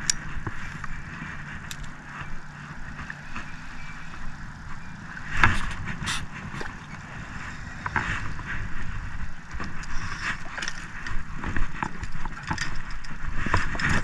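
A spinning reel being cranked on a retrieve, with scattered clicks and knocks, over a steady low motor hum.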